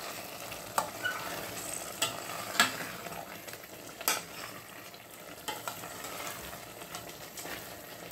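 A spoon stirring thick mbika (ground pumpkin-seed) sauce in a stainless steel stockpot, knocking against the side of the pot about half a dozen times over a steady sizzle of the sauce cooking.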